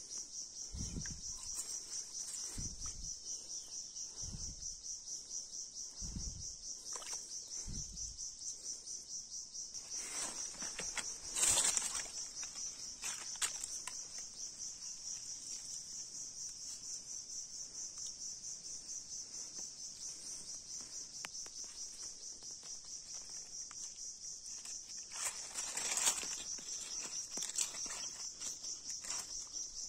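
A steady, high-pitched insect chorus trilling with a rapid pulse, with dull knocks and scraping, splashing handling noise from hands digging among wet stones and gravel, loudest about eleven seconds in and again near the end.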